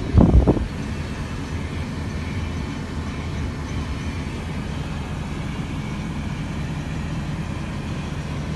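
Steady low rumble of a 2017 Ford F-250 pickup's engine idling, heard from inside the cab, with a brief loud burst at the very start.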